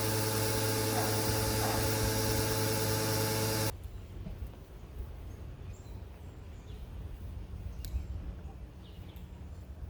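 Small electric pressure washer running steadily, its motor humming under the hiss of the spray, then cutting off suddenly about four seconds in. Afterwards only a faint outdoor background with a few bird chirps and one sharp click.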